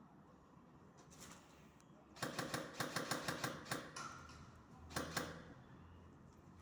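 Airsoft gun firing a rapid burst of about a second and a half, then two quick shots a second or so later.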